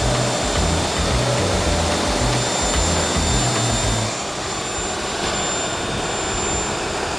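Small turbojet engine of a jet-powered snowmobile running steadily: a loud rushing blast with a thin high whine on top, the rush dropping slightly about four seconds in. Background music plays underneath.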